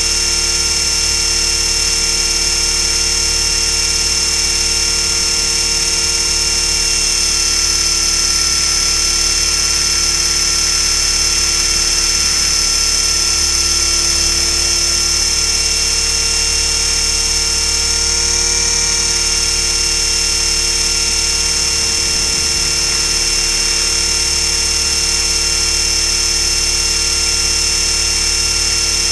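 Align T-Rex 500 electric RC helicopter running: a steady high-pitched whine from the motor, gears and rotor, shifting slightly in pitch now and then.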